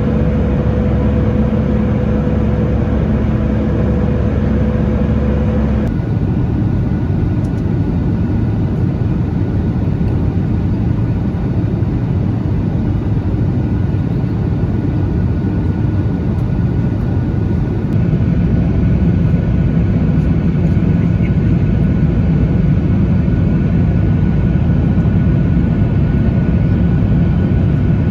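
Steady jet cabin drone aboard a Boeing 737-900ER: the CFM56-7B engines and airflow heard from a window seat. The tone changes abruptly twice.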